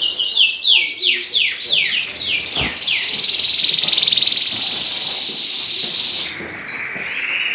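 A small cage-bird finch singing: a run of quick falling notes, about four a second, then a long buzzy trill held high, which drops to a lower buzzing trill near the end.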